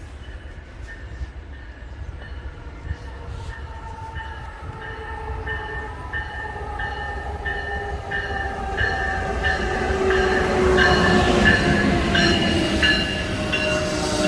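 Train approaching, growing steadily louder, with a whine slowly falling in pitch and a regular clatter about twice a second.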